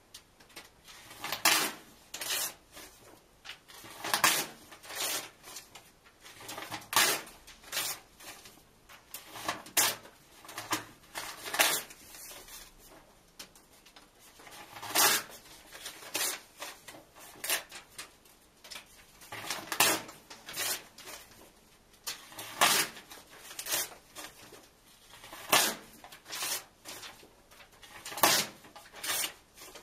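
Book pages being ripped out and torn in half, one after another: a sharp paper rip every second or two, often two in quick succession.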